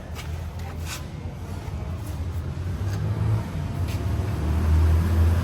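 A motor vehicle's engine running with a low rumble that grows louder toward the end, with a few light clicks.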